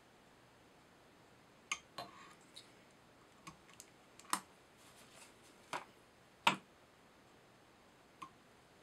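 Scattered clicks and taps of small metal fly-tying tools, a whip finisher and scissors, handled at the vise: about nine short, irregular clicks, with a last one near the end as the scissors come to the fly.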